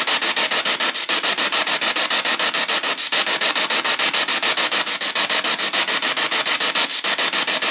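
Spirit box sweeping through radio frequencies, played through a small JBL portable speaker: a steady hiss of radio static chopped about ten times a second as it jumps from station to station.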